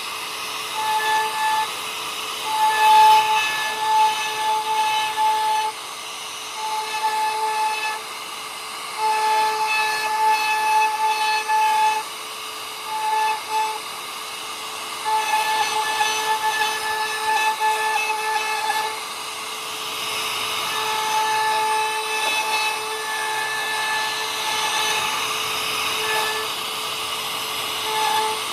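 Rotary power carving tool working wood in on-off spells, each a steady high whine lasting from about half a second to three seconds, over a constant hiss.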